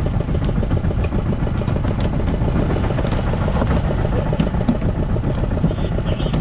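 A fishing boat's engine running steadily, with light clicks and knocks scattered over it.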